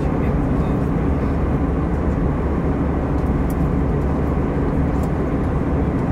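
Airbus A320 cabin noise in flight at altitude: a steady, unchanging low rumble of engines and airflow heard from inside the cabin.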